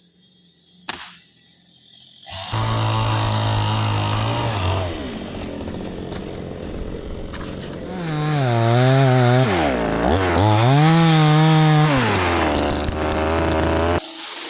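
Chainsaw engine starts running about two seconds in and holds a steady speed. It then revs higher, its pitch sagging and recovering a couple of times, drops back to a lower speed and cuts off abruptly near the end.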